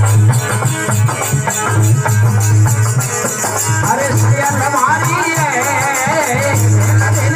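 Instrumental interlude of a devotional bhajan: a steady pulsing bass with rattling percussion, joined about four seconds in by a wavering, ornamented melody line.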